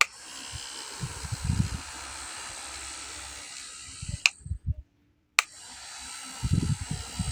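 Mini handheld electric fan running with a steady airy whir, with sharp clicks and a few low handling bumps. It cuts off at a click about four seconds in and starts again at another click about a second later.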